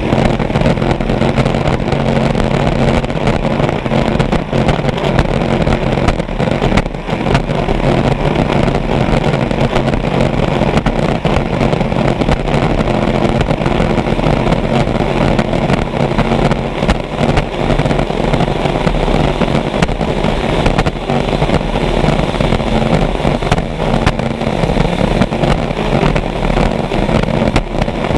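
Vintage racing hydroplane's engine running hard at a steady high speed, heard from aboard the boat, mixed with loud wind and water rush from the hull skimming the lake. The note holds steady, with a brief drop about seven seconds in.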